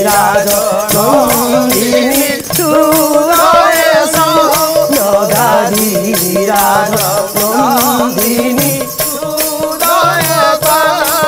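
Woman singing an Odia devotional pala song in wavering, ornamented notes, over a steady rhythmic percussion accompaniment.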